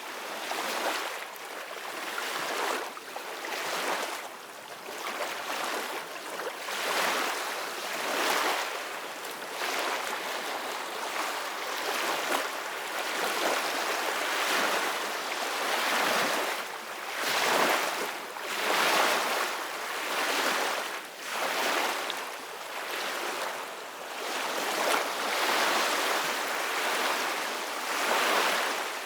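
Ocean waves breaking and washing on a beach, the surf hiss swelling and ebbing every two to three seconds.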